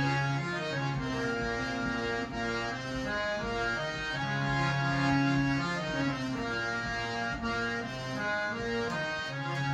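Harmonium playing the instrumental interlude of a Gujarati bhajan: a melody of long, held reedy notes that change every half second to a second or so.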